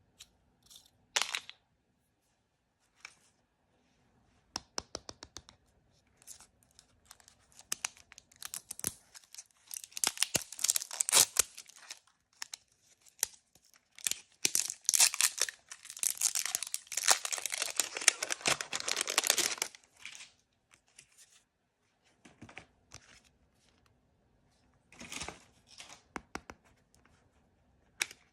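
Blind bag packaging being torn open and crinkled by hand, with scattered crackles and two longer stretches of dense tearing and rustling in the middle.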